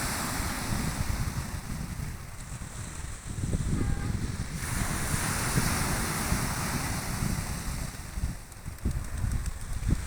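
Black Sea surf washing onto the shore, swelling and easing, with wind buffeting the microphone in a low rumble.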